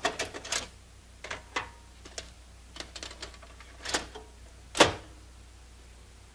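Clicks and clunks of a top-loading Panasonic video cassette recorder being worked by hand, its buttons pressed and a cassette pushed down into the holder. There are about a dozen separate clicks over five seconds, and the loudest clunk comes near the end.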